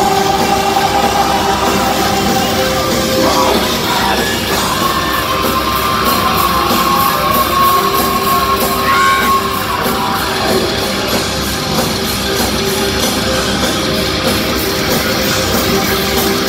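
Heavy metal band playing live: dense distorted guitars and drums with sung and shouted vocals, and a long held note in the middle.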